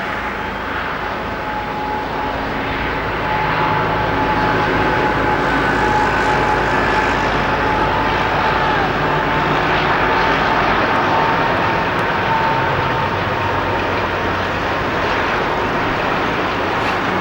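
Diesel train engine running steadily with a constant whine over its low note, growing louder about three seconds in.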